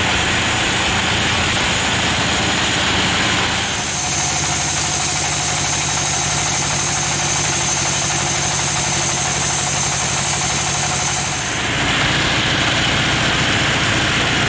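Band sawmill running, its blade cutting through a teak log from about 4 s in to about 11.5 s, adding a high-pitched whine over the steady machine sound, then running on without cutting.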